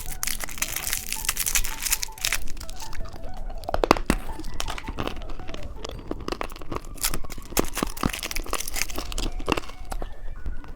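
Candy wrapper being crinkled and torn open by hand: a dense, continuous run of crackles and sharp snaps.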